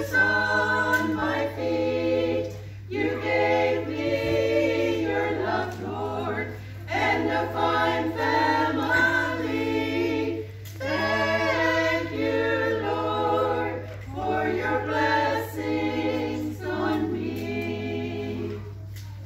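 A small women's choir singing unaccompanied, in phrases of a few seconds with short pauses for breath; the singing ends shortly before the end. A steady low hum runs underneath.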